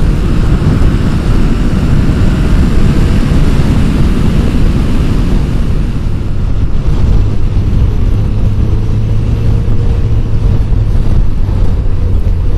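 Motorcycle on the move at road speed: the engine running under loud, steady wind and road noise. About halfway through the engine note settles into a steady low hum.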